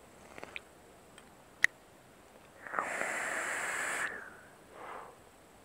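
A drag on a vape's Kennedy-clone dripping atomizer with a 0.8-ohm kanthal coil: a sharp click, then about a second and a half of hissing as air is drawn through the firing coil, followed by a shorter, fainter breath.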